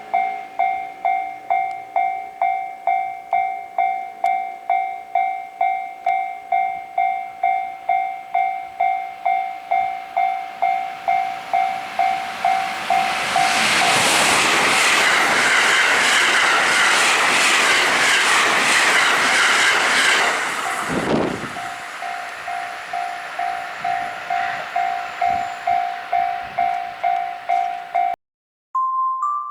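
Japanese level-crossing warning bell ringing in an even two-tone pulse, about two strikes a second. About halfway through a train passes over the crossing, its rumble and wheel clatter drowning the bell for some seven seconds. The bell rings on after the train has gone and cuts off near the end.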